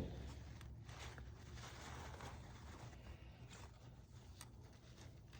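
A single sharp click, then faint rustling and handling noises over a low steady hum.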